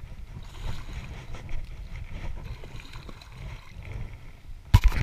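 Wind rumbling on the microphone with faint water movement, and about five seconds in a quick cluster of three or four sharp, loud thumps.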